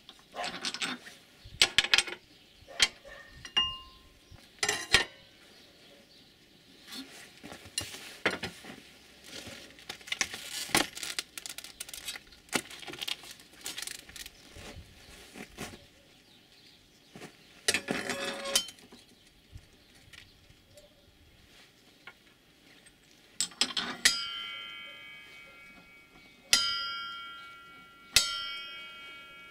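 Metal clinks and knocks as a circular saw blade is handled and fitted, then the steel saw blade is struck three times near the end, each strike ringing on like a bell and fading slowly.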